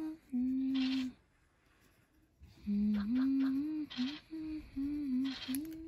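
A woman humming a tune in held, gliding notes, with a pause a little after a second in. There are a few short hissy scratches along with it.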